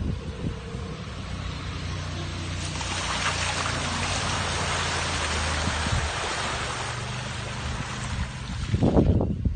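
2017 Subaru Forester's flat-four engine droning steadily as it drives over rough ground, under a rushing hiss that swells in the middle. A few heavy thumps come near the end.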